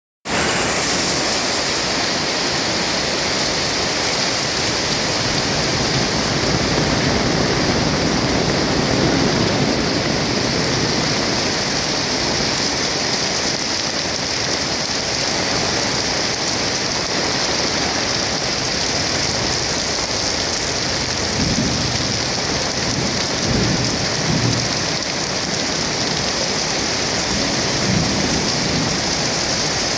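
Heavy rain falling steadily in a dense hiss, with low rumbling swells coming and going a few times.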